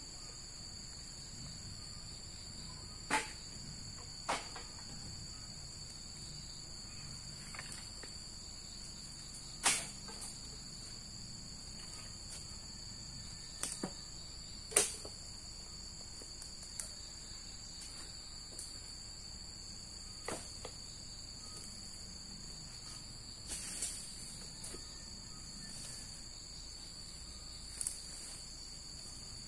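Steady chorus of insects trilling at a few fixed high pitches, with scattered sharp clicks or knocks every few seconds, the loudest about ten and fifteen seconds in.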